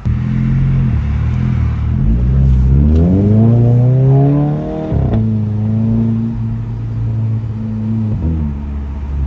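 Volkswagen MK6 GLI's turbocharged four-cylinder exhaust rising in pitch under acceleration for about three seconds, then breaking off sharply about five seconds in as the DSG gearbox upshifts with a short fart, settling into a steady drone.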